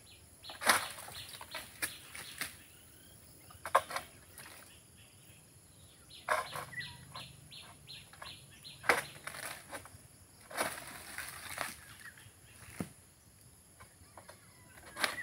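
Oil palm fronds being cut with a long pruning pole: scattered sharp cracks and snaps as the blade works into the frond bases, with a longer rustle of fronds about two-thirds of the way in.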